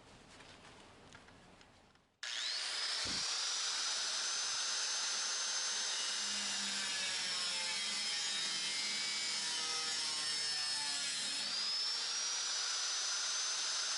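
Handheld electric power tool switched on about two seconds in, its motor whine climbing quickly to a high pitch and then running steadily over a dense hiss; near the end the pitch sags briefly and climbs back, as under load.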